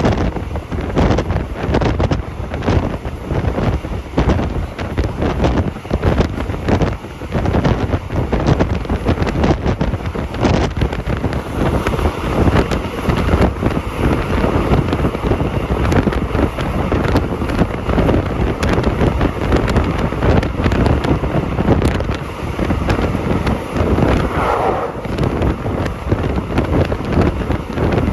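Wind buffeting the microphone in strong, constant gusts: a loud, rumbling noise.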